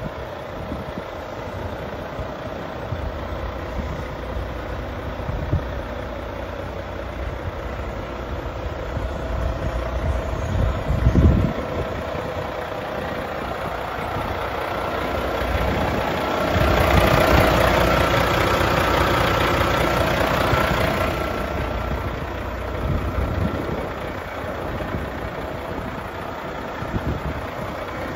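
Volvo FMX 460 truck's 13-litre six-cylinder diesel engine running at idle. A brief thump comes a little before halfway. A louder, fuller stretch of about five seconds follows a little past the middle, then the engine settles back.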